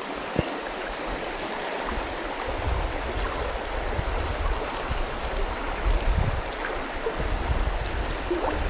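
Steady rush of flowing river water, with uneven low rumbles on the microphone.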